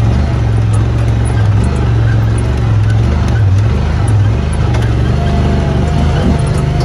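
Side-by-side UTV engine running steadily under load while driving along a rocky dirt trail, heard from the cab.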